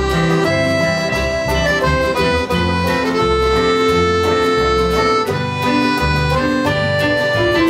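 Instrumental folk music with no singing. A reedy melody of long held notes plays over a steady rhythm and pulsing bass.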